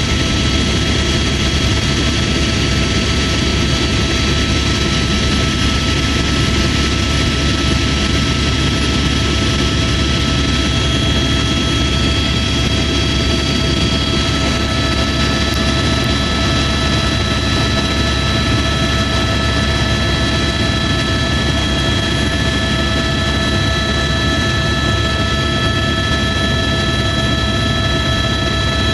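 Helicopter in flight: a steady, loud rotor and engine noise with a constant high whine of several tones, heard by a passenger on board.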